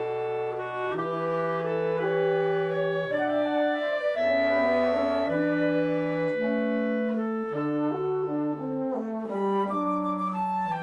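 Marine Corps band playing: brass, with French horn prominent, and woodwinds sound held chords that change every second or two.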